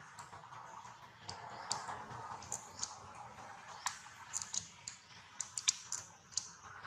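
Baby macaque suckling at its mother's nipple: irregular small mouth clicks, a few of them sharper and louder in the second half, over faint steady background noise.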